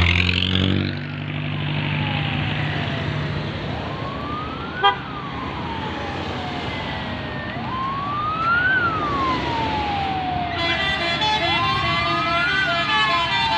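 Ambulance siren wailing over road traffic, its pitch sweeping slowly up and down about every four seconds. A sharp click sounds about five seconds in, and a steady cluster of high tones joins in near the end.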